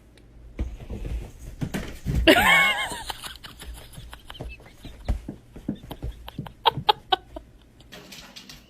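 A single loud animal cry about two seconds in, followed by a run of short clicks and knocks.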